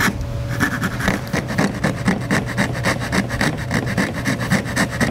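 Coping saw cutting by hand through painted wooden chair rail molding, coping the end along its profile line. The strokes come quick and even, about five a second.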